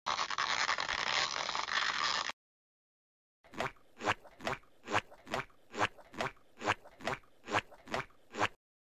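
Edited-in sound effects: a burst of noise for about two seconds, then, after a short pause, a run of about a dozen short sharp taps, evenly spaced at a little over two a second.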